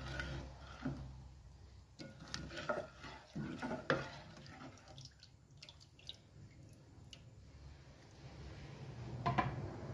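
A spoon stirring milk and vermicelli in a cooking pot: liquid sloshing and dripping, with scattered faint clicks of the spoon against the pot.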